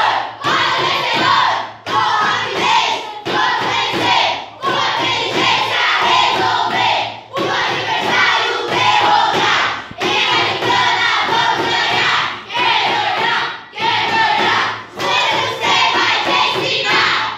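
A class of children chanting their group cheer in unison, loud rhythmic phrases with a short breath-gap about every second and a half.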